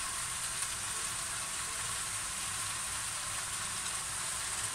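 Stir-fried udon noodles and vegetables sizzling steadily in a frying pan.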